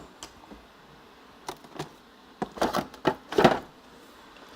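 Light kitchen handling noises: a few soft clicks and knocks, then about a second of quick rustling and scraping strokes near the middle.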